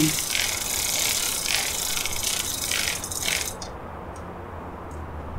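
Bicycle chain being pedalled backwards through a Park Tool chain cleaner filled with cleaning fluid: a fast, continuous ratcheting rattle of the chain running through the brushes and the freewheel clicking. It stops abruptly about three and a half seconds in, leaving a low hum.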